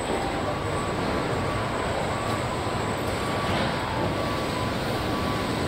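Steady machinery din of a car body-shop assembly line, with a faint high tone that comes and goes.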